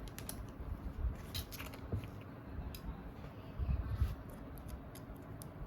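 Irregular small plastic clicks, taps and knocks from handling a phone while taking it apart, with a few heavier knocks near the middle.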